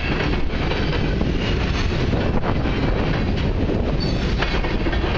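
Covered hopper cars of a freight train rolling past: a steady rumble and rattle of steel wheels on the rails, with occasional clacks.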